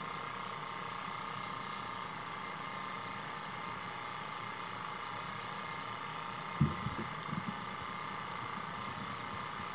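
Miniature twin-cylinder single-acting steam engine, fed by a small alcohol-fired brass-tube boiler, running steadily with an even sound. A few knocks about two-thirds of the way in are the loudest thing.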